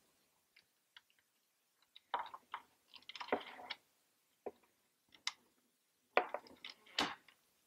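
Faint handling sounds of a tamper-evident wire seal being threaded through plastic and metal eyelets: scattered small clicks and brief scraping rustles, with a sharper click near the end.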